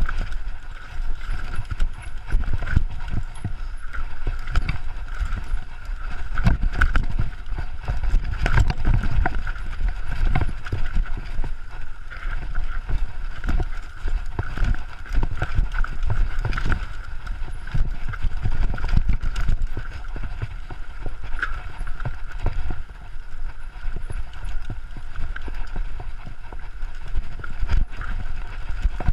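Downhill mountain bike rattling and clattering over rocks and roots, picked up by a chest-mounted GoPro HERO3: a constant stream of irregular knocks and jolts from the bike, over a steady low rumble.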